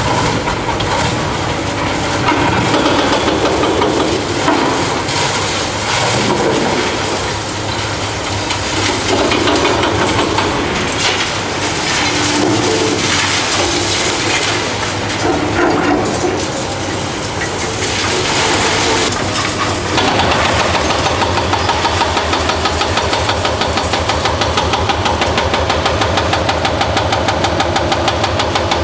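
Diesel engines of demolition excavators running under load while a bucket digs, scrapes and tips concrete rubble. About twenty seconds in, a hydraulic breaker on an excavator arm starts hammering into a concrete wall in rapid, even blows.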